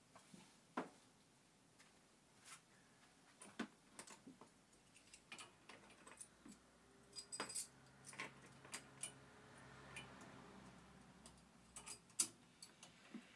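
Light scattered clicks and taps of a car's plastic cowl air intake grille and its clips as it is worked loose by hand, with one sharp click near the end.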